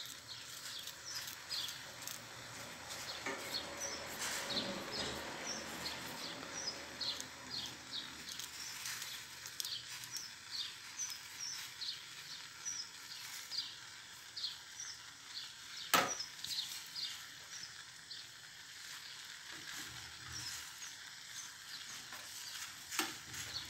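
Diced tomatoes frying in a stainless steel pan, a quiet steady sizzle with frequent small crackles and pops. One sharp click sounds about 16 seconds in.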